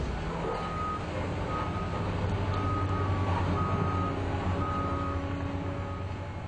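A heavy vehicle's reversing alarm beeping about once a second over a low engine rumble.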